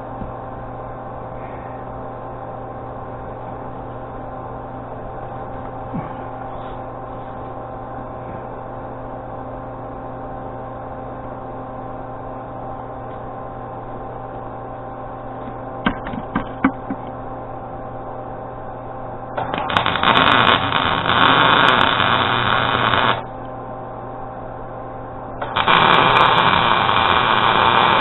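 Arc welding: the welder hums steadily, a few sharp taps come about sixteen seconds in, then the arc crackles loudly in two runs of about four and three seconds as a weld bead is laid on the wood splitter repair.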